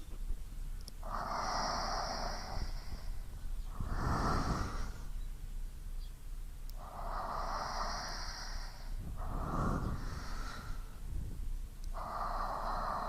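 A person breathing slowly in and out, close to the microphone: about five breath sounds of one to two seconds each, with short quiet pauses between them.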